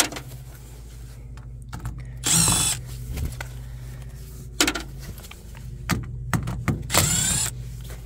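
Cordless driver spinning screws out of a furnace cabinet's sheet-metal panel in two short runs, about two seconds in and again about seven seconds in, each a whine that rises and falls. A few sharp clicks of metal fall between the runs, over a steady low hum.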